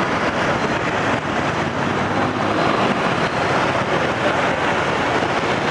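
Steady street traffic noise, an even rush of vehicle and road sound with no single event standing out.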